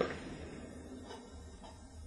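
Quiet room tone with a faint low hum in a pause between a man's spoken phrases, the last of his voice dying away at the very start.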